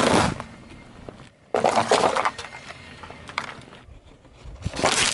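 A car tyre slowly rolls over and crushes small chocolate balls on asphalt, making bursts of crunching and crackling with scattered small cracks between. A louder burst of noise builds near the end as the tyre presses onto a foil balloon.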